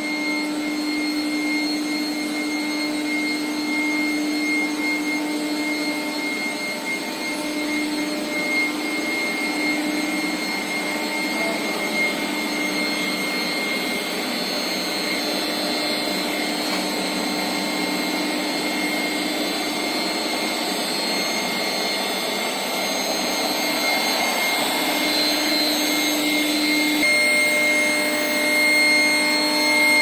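Steel pipe induction annealing line running: a steady high-pitched whine with a fainter tone above it, over machinery noise and a lower hum that drops out and returns several times. The noise grows a little louder near the end.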